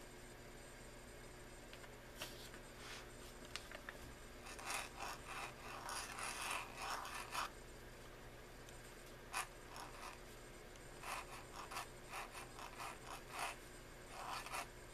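Pointed steel calligraphy nib in an oblique pen holder scratching faintly across paper in clusters of short strokes, with brief pauses between letters.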